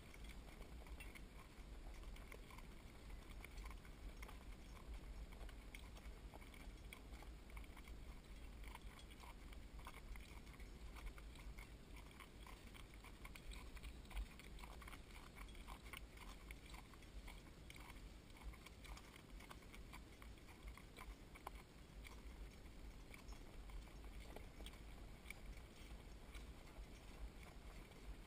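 Faint clip-clop of hooves on a dirt and gravel lane, as a harnessed animal pulls a cart, with a steady low rumble underneath. The small clicks come irregularly, and one louder knock falls about halfway through.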